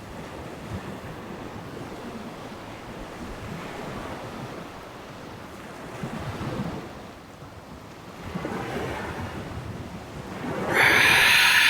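Waves washing onto a sand beach with wind, swelling and easing every few seconds. Near the end a short, much louder rushing burst cuts in and stops abruptly.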